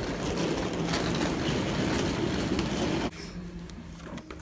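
Luggage cart wheels rolling and rattling across a floor, cutting off suddenly about three seconds in to a quieter room with a low hum, and a sharp click at the very end.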